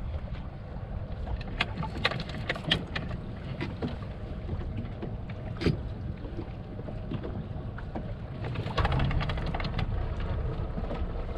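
Wind and water around a small fishing boat: a steady low rumble with wind on the microphone. Several sharp clicks and knocks come in the first six seconds, and a louder rush of noise starts about nine seconds in.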